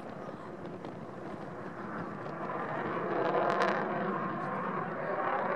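Distant jet noise from a Dassault Rafale's twin turbofan engines as it flies its display high overhead, a steady rush that swells about three seconds in.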